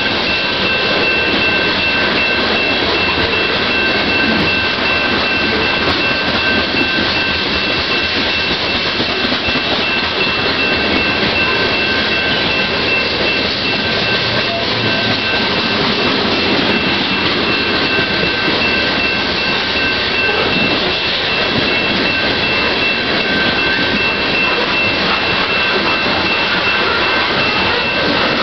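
Coal train's hopper cars rolling past steadily, a continuous noise of wheels on rail with clickety-clack. A steady high-pitched tone runs over it the whole time.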